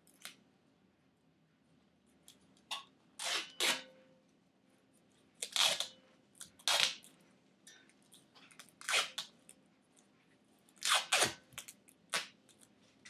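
Duct tape being pulled off the roll in a series of short, sharp rips, about eight of them, as it is wrapped around a wooden shovel handle.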